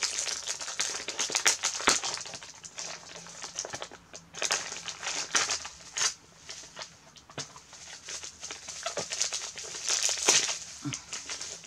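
Gift wrapping paper crinkling and rustling as a small package is unwrapped by hand, in three louder spells of crackling.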